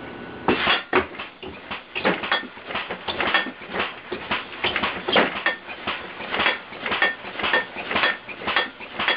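Computer-controlled, air-compressor-powered alarm contraption going off: a rapid, irregular clatter of metallic bangs and clangs, several a second, some leaving a short ringing tone. It starts suddenly about half a second in.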